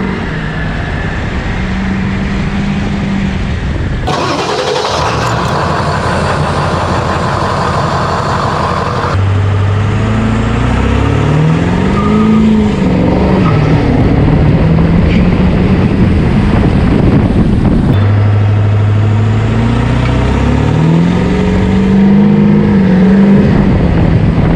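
Ford 7.3 L Powerstroke turbodiesel V8 on a performance tune, accelerating hard: the engine note climbs with the revs and drops back at each shift, over several short passes that cut abruptly from one to the next.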